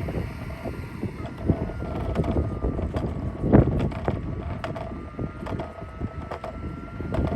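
Roomba robot vacuum running on a wooden dock, with a faint steady hum and irregular knocks and clatter, and wind buffeting the microphone.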